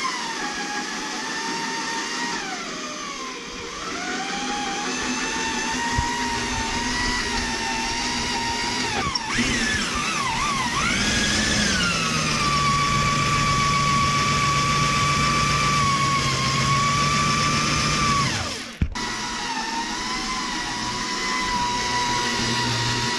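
Corded electric drill running under load while drilling out spot welds in car body sheet metal. Its motor pitch sags as the bit bites and recovers, wavers, then holds steady for several seconds before breaking off briefly near the end.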